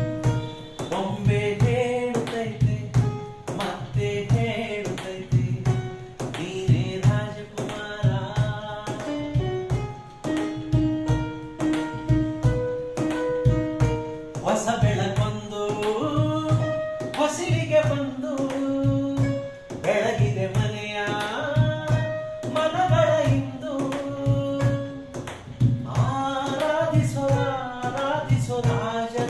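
A melody played on a mobile phone keyboard app, with hands beating an even rhythm on a wooden tabletop like a tabla. A man starts singing about halfway through.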